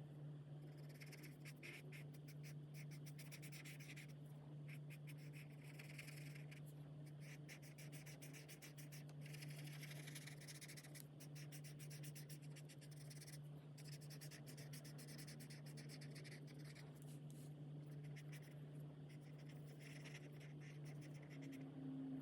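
Faint scratching of alcohol markers rubbing across colouring-book paper in quick repeated strokes, in runs with short pauses, over a steady low hum.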